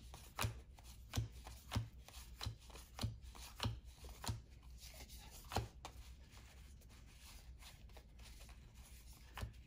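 Basketball trading cards being flipped through one at a time, each card giving a sharp click or snap as it is moved off the stack: about nine clicks a little over half a second apart, stopping about six seconds in, followed by fainter soft handling.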